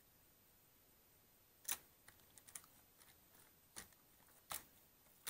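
Keys of a Microsoft computer keyboard clicking as cleaning gel is pressed down onto them: a few scattered clacks with fainter ticks between, starting about a second and a half in.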